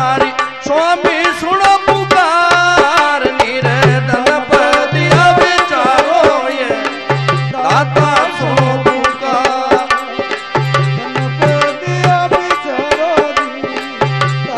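Instrumental passage of a devotional bhajan: a bending, ornamented melody line over a fast hand-drum rhythm, with deep bass drum strokes falling in short groups.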